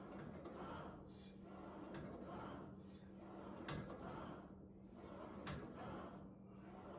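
Faint rhythmic rubbing and swishing, about once a second, from a home cable machine's cable running over its pulleys during cable bicep curls, over a steady low hum.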